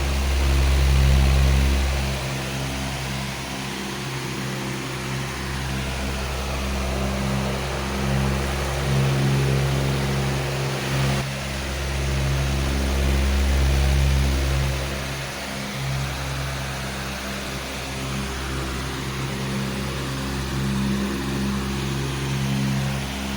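Powerful electric fan running steadily: a rush of air over a low motor hum made of several steady tones. The level swells and eases slowly every few seconds.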